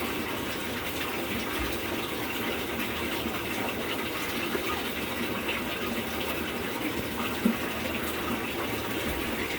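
Steady rush of water running inside a Samsung top-load washing machine, with a small knock about seven and a half seconds in.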